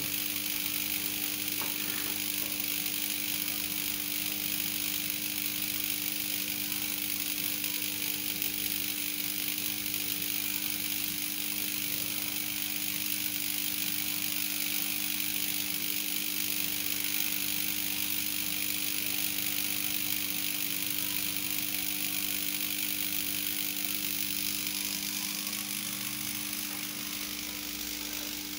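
High-voltage test transformer of a glove-testing rig energised at about 20 kV during a withstand test on rubber insulating gloves, giving a steady hum with a constant hiss over it.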